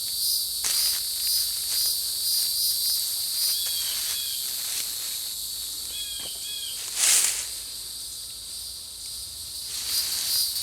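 Steady chorus of insects, pulsing about twice a second at the start and again near the end. Two pairs of short chirps fall in the middle, and a brief rustle comes about seven seconds in.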